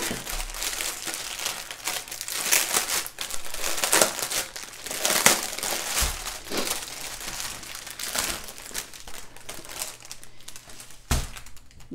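Clear plastic packaging crinkling continuously as a large, heavy shrink-wrapped bundle of diamond painting drill bags is opened and handled, with a couple of dull bumps about six seconds in and near the end.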